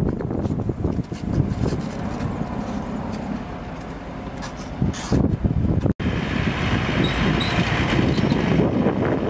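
A motor vehicle's engine running steadily. The sound breaks off for an instant about six seconds in and comes back a little louder, with more hiss.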